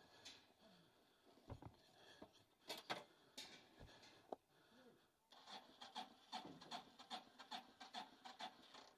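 Near silence with faint scattered clicks, and from about halfway a run of light, even ticks at roughly four a second.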